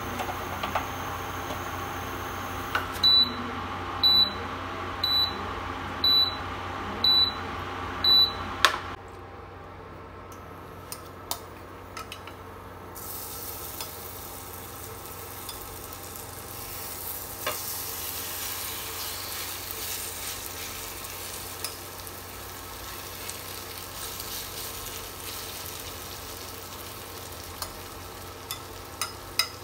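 Induction cooktop beeping six times, about once a second, as its setting is changed. Then shredded-cabbage okonomiyaki batter sizzling in hot oil in the frying pan, with a spoon scraping and tapping as the batter goes in.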